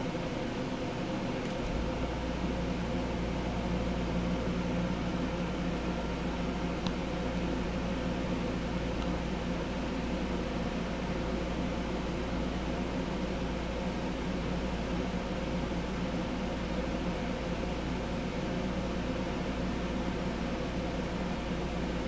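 Home Decorators Collection Windward 52-inch ceiling fan running steadily: a constant whir of motor and blades with a hum. A low rumble comes in about two seconds in and holds.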